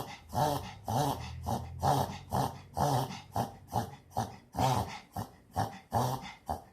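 Dog reverse sneezing: a fit of rapid, repeated snorting inhalations through the nose, about two a second.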